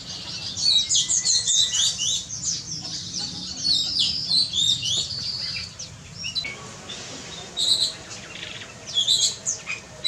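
A group of small songbirds twittering with many quick, high chirps and short trills. The calls are dense for about six seconds, then thin out to a few scattered bursts.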